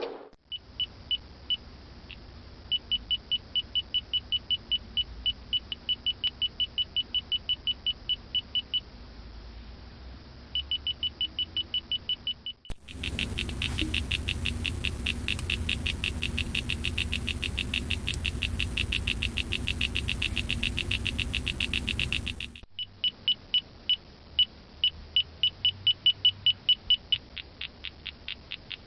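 Radar detector alerting inside a car: trains of short high-pitched beeps over the car's steady low rumble, speeding up to fast continuous beeping for about ten seconds in the middle before settling back to shorter runs.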